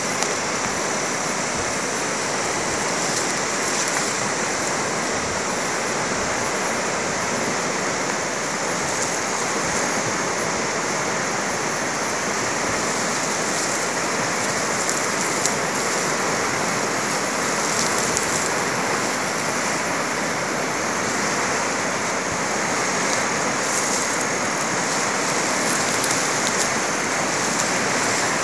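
Steady rushing noise of water, even and unbroken, with a few faint ticks.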